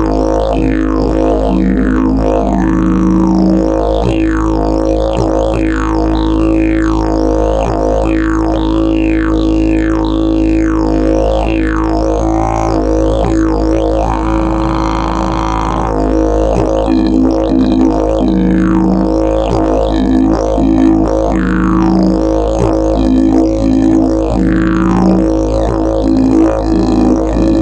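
Fiberglass and prickly pear fiber double-slide didgeridoo played in a continuous low drone, its tone shaped by fast mouth-formed sweeps. The sweeps ease off briefly about halfway through. Short higher notes pop out of the drone several times, mostly in the second half.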